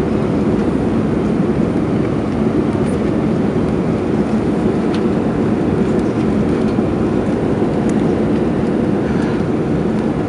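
Steady cabin noise of an Airbus A320 climbing after takeoff, heard from a window seat: an even, deep rush of engine and airflow noise that does not change.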